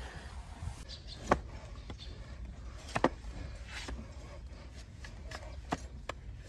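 A large flat hoof-trimming blade cutting into a donkey's hoof resting on a wooden block: a few sharp cracks a second or two apart, the two loudest in the first half, over a low steady hum.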